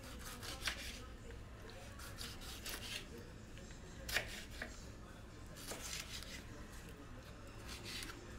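Kitchen knife cutting a tomato on a bamboo cutting board: soft, irregular strokes as the blade goes through the tomato and taps the board, the sharpest about four seconds in.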